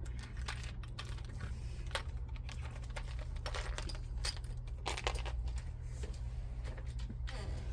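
Irregular light clicks, taps and scrapes of packaging being handled and slit open with a craft blade, over a steady low hum.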